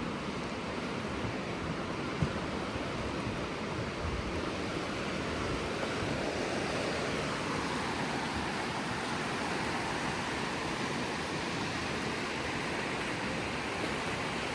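A raging mountain creek rushing steadily.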